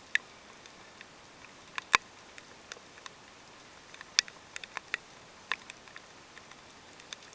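Rain falling, with irregular sharp drops pattering close by over a faint steady hiss; one drop about two seconds in is the loudest.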